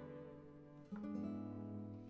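Background music: acoustic guitar playing held, plucked notes, with a new note struck about a second in.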